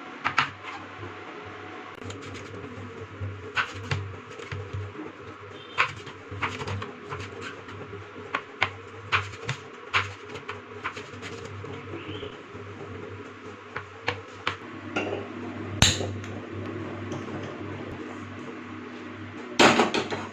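Kitchen utensils and dishes being handled: irregular clicks, taps and knocks over a steady low hum, with a louder knock about sixteen seconds in and another burst near the end.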